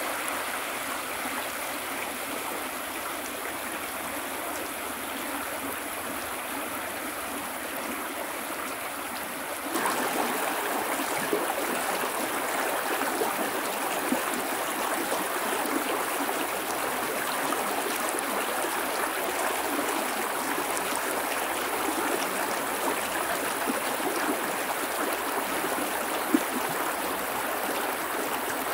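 River water flowing and rushing steadily, growing louder about ten seconds in.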